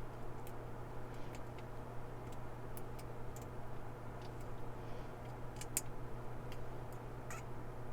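Faint, irregular small clicks and ticks of a lock pick working the pin tumblers of a laminated steel padlock, over a steady low hum.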